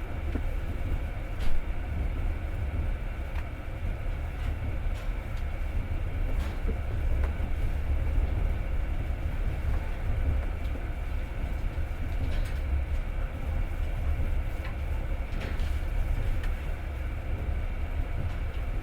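Passenger train running, heard from inside the carriage: a steady low rumble of wheels on rail with scattered sharp clicks and knocks, the loudest about a second and a half in.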